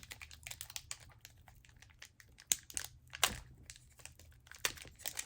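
Crinkling and crackling of a foil Pokémon booster-pack wrapper being handled and worked open, with a few sharper crackles; the pack is tightly sealed and slow to open.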